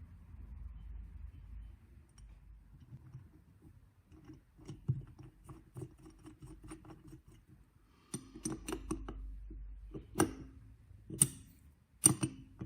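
Light clicking and clinking of small metal carburetor parts being handled and fitted together, with a few sharper, louder clicks in the last few seconds.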